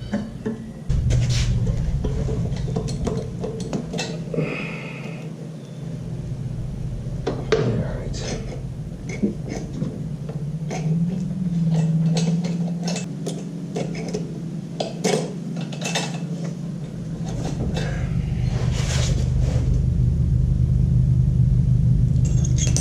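Scattered metallic clicks, taps and clinks of hand tools and small metal parts as a carburetor is unbolted from a push mower's Kohler engine, over a steady low hum.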